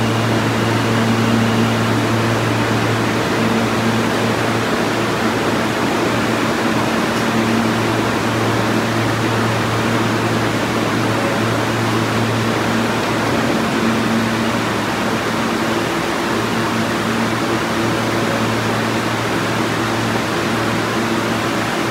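Stationary R160 subway car's air-conditioning and auxiliary equipment running: an even rush of air with a steady low hum underneath.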